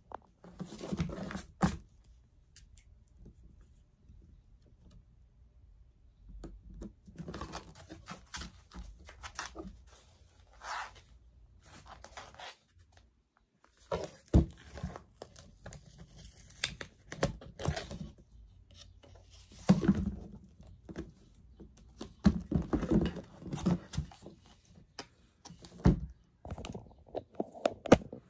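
Hands working with double-sided tape and card: tape peeling and tearing, paper and card rustling, and light knocks as pieces are set down on the table, in irregular bursts with short pauses.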